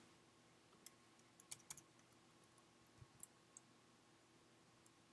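Near silence with a handful of faint, scattered computer keyboard clicks.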